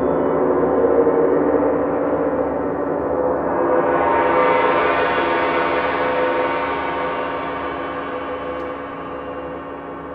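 Several hanging gongs ringing together, played softly at their edges with mallets, giving a sustained wash of frothy, shimmering highs over a lower hum. A fresh swell of bright highs comes in about four seconds in, then the whole sound slowly dies away.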